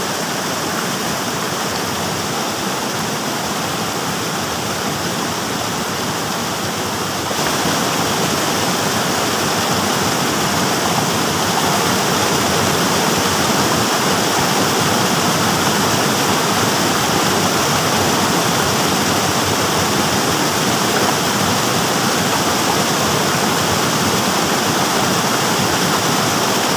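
Shallow rocky stream rushing over stones in small rapids, a steady, loud wash of water that gets a little louder about seven seconds in.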